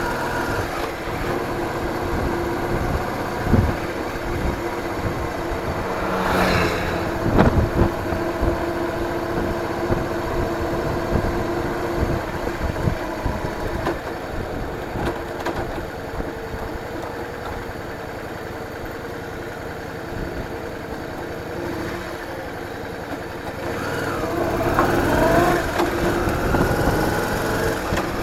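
A vehicle engine running on the move, recorded by an onboard camera, with wind and road rumble buffeting the microphone. It gets quieter for a while in the middle, then the pitch rises as it accelerates near the end.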